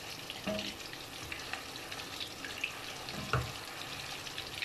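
Mutton kababs shallow-frying in hot oil: a steady sizzle with scattered crackles, while a wooden spatula stirs them in the pan, with one knock a little over three seconds in.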